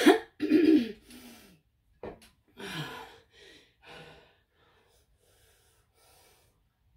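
A person breathing hard and gasping after a hard cycling effort: a handful of short, loud breaths in the first three seconds, fading to faint breathing after about four seconds.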